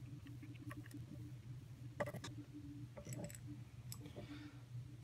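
Light metallic clicks and taps of a nut being undone with a hex key and an aluminium carriage plate being lifted off a micro lathe's cross slide, the clearest about two and three seconds in. A low steady hum runs underneath.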